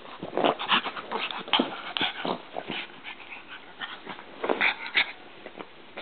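Pug puppy making a quick, irregular run of short noises as it plays and rolls in a blanket, with a louder cluster of them about four and a half seconds in.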